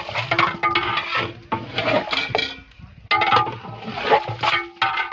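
Long-handled ladle scraping and stirring in a large deg cooking pot, with repeated strokes through thick curry and a brief lull a little past halfway. The yogurt is being mixed into the curry.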